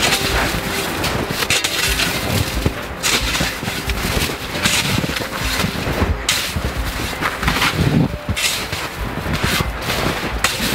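Snow shovels, one with a yellow plastic blade, digging into packed snow: a run of repeated crunches and scrapes as the blades bite, lift and dump the snow.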